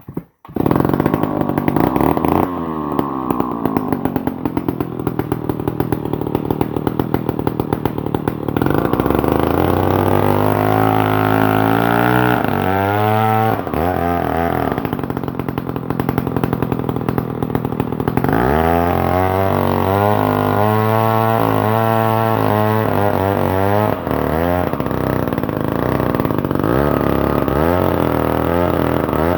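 Stihl 070 two-stroke chainsaw running, starting about half a second in, with its engine speed rising and dropping back twice. It is running on a fuel mix with too much oil.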